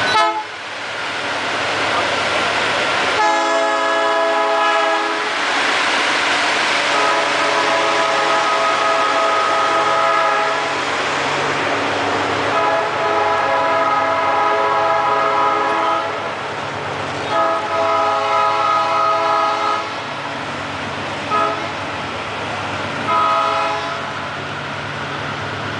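Diesel freight locomotive's air horn sounding in a series of blasts, four long ones of two to four seconds each and then two short ones near the end, over the steady hum of the engine and the noise of the freight wagons rolling past.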